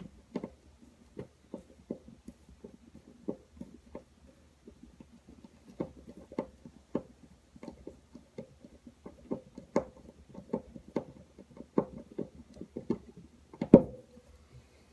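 Hand screwdriver backing a screw out of a snap toggle anchor in drywall: a run of small, irregular clicks and ticks, about two a second, with one louder knock that rings briefly near the end.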